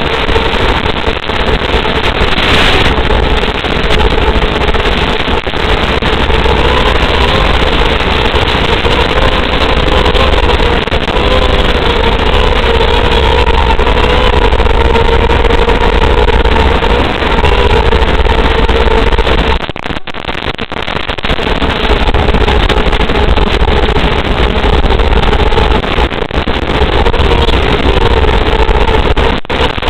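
Quadcopter motors and propellers running with a steady whine over heavy rushing noise, heard from the craft's onboard camera. The pitch wavers slightly with throttle, and the sound dips briefly about twenty seconds in.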